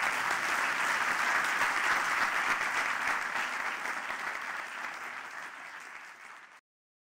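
Audience applauding at the close of a talk: a dense clapping that slowly thins out over the last few seconds and is then cut off abruptly near the end.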